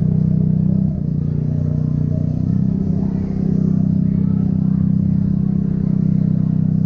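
Chevrolet Onix RS 1.0 turbo three-cylinder running through an aftermarket sport exhaust with a Luzian LA011 intermediate muffler, giving a loud, deep, steady exhaust drone. The note eases off briefly about a second in and again near the middle, then holds steady.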